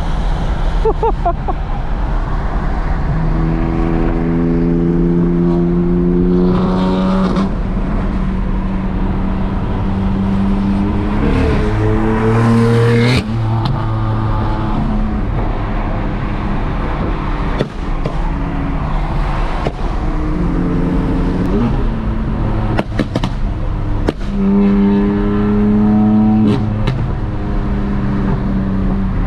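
Turbocharged straight-six of a BMW F8X M car driving, its engine note held steady for a few seconds at a time and stepping up and down in pitch with several brief rises in revs, over a steady rush of road and tyre noise on a wet road.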